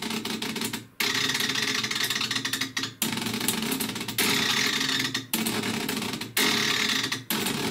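Tornado-S missile fin servo actuator, its DC motor driving the titanium vane through a gear train and worm gear, running in about six bursts of one to two seconds each that start and stop abruptly. Within each burst the drive stutters forward in small steps, the stepper-like motion caused by the dead zone in the servo control.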